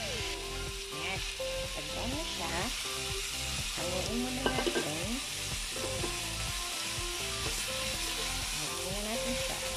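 Chicken breast pieces sizzling as they fry in oil in a wok, stirred with a wooden spatula.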